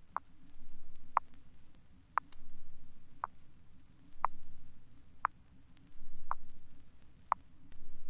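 Test-record frequency sweep from a 1972 Realistic stereo demonstration LP: a thin, very high sine tone gliding slowly upward between 10,000 and 15,000 cycles, cutting off about seven seconds in. Short clicks recur about once a second over a faint low rumble.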